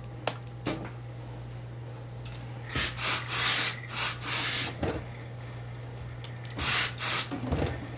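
Steam iron hissing in short bursts of steam as it presses suit trousers: a run of bursts a few seconds in, and two more near the end. A few light clicks of the iron being handled.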